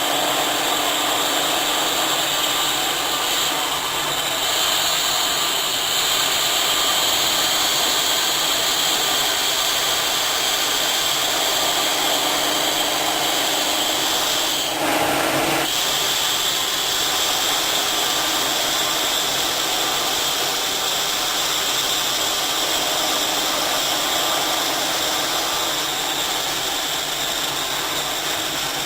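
Electric motor of a pipe-notching machine for stainless pipe running steadily with a high whine. About halfway through, the sound briefly changes for under a second before settling back.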